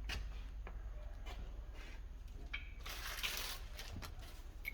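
Light clicks and clinks from handling brake pads and pad clips at a minivan's disc brake, with a short rustling hiss about three seconds in, over a steady low rumble.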